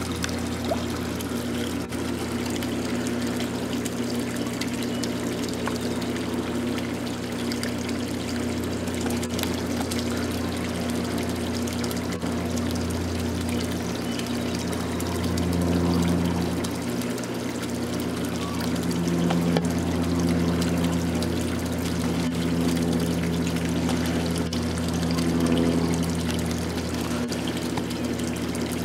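Water pouring steadily from a pond filter's return pipe into the pond, over a steady low hum.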